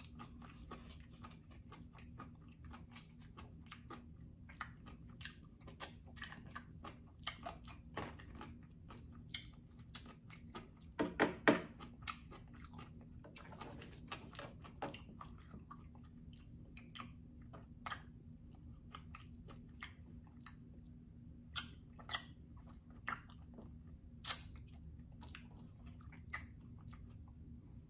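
Close-miked chewing of a mouthful of food: wet mouth smacks and clicks at irregular intervals, with a brief louder stretch about eleven seconds in.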